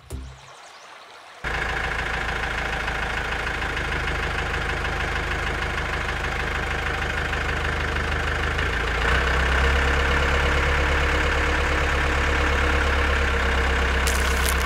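Remote-control toy excavator working with a steady engine-like hum. The hum starts abruptly about a second and a half in and gets louder about nine seconds in, as the arm and bucket move.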